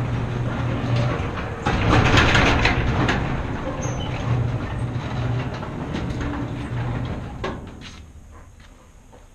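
A motorcycle engine idling with a steady low pulsing hum, with a loud rushing noise about two seconds in lasting a second or so. The engine cuts out a little over seven seconds in, and the sound drops away.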